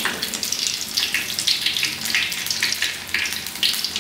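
Battered jackfruit-rind pieces deep-frying in hot oil in a wok: a continuous sizzling, crackling hiss that swells and fades unevenly.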